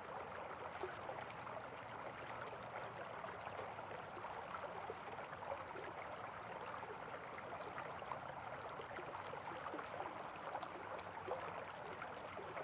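Faint, steady rush of running water with small, irregular ticks.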